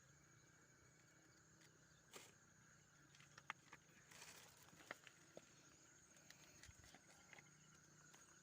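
Near silence with a faint outdoor night ambience: a steady high-pitched insect trill, and a few scattered soft clicks and ticks.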